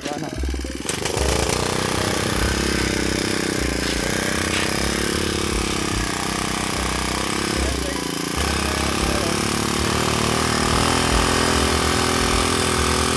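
Small engine of a homemade mini cargo cart running steadily as the cart rides along, its pitch rising and falling slightly.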